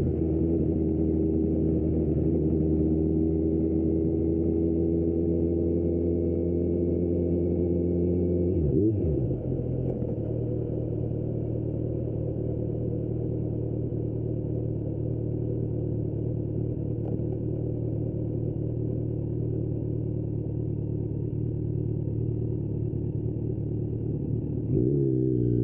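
Kawasaki Z900 SE inline-four motorcycle engine through an Austin Racing exhaust, pulling with its pitch slowly rising for about eight seconds. It dips and changes note briefly about nine seconds in, then runs quieter at steady revs, and picks up again with a quick rise in pitch near the end.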